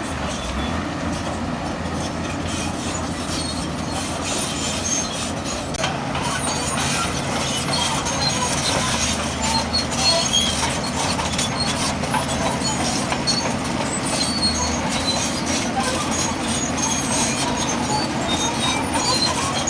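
Crawler bulldozer working, its diesel engine running steadily under load while its steel tracks clank and squeal, with stone clattering throughout; it grows a little louder about six seconds in.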